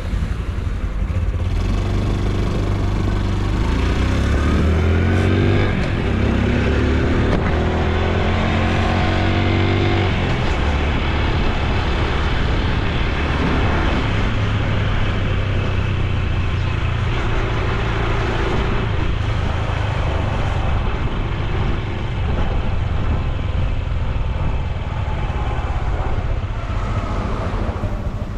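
Honda Super Cub C125's 125 cc single-cylinder four-stroke engine and exhaust running under way. Its pitch climbs several times in the first ten seconds as it accelerates through the gears, then holds steadier while cruising.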